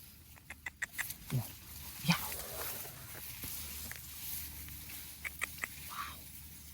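A few short, low grunting calls that drop in pitch, among scattered sharp clicks.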